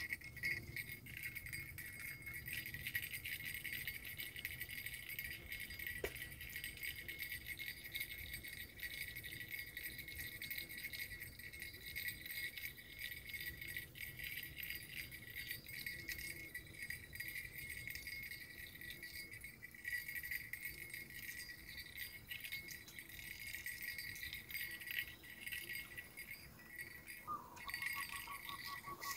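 Steady, high-pitched rattling buzz of an insect chorus in the riverside vegetation, over a low rumble, with a short steady tone near the end.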